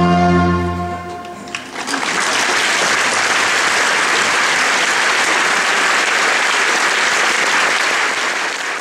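The final held chord of an opera trio with orchestra, cutting off about a second and a half in, then audience applause that fades away near the end.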